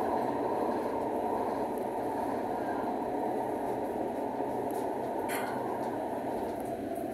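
Tram running through a tunnel, heard from inside its rear driver's cab: a steady rumble of wheels on rails, with one brief sharp click about five seconds in.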